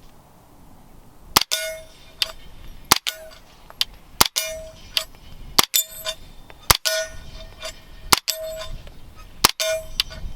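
Seven single suppressed 9mm shots from a SIG MPX with an AAC Ti-Rant 9 suppressor, fired at a steady pace of about one shot every second and a half. Each shot is followed a moment later by the clang of a steel target ringing briefly.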